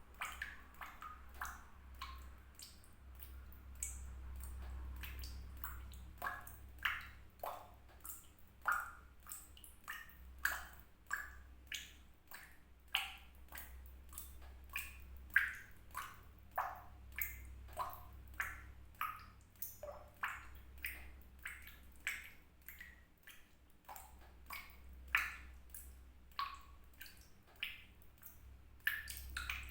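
Water drops falling into water, each one a short pitched plink, coming irregularly at about one to two a second over a low steady hum.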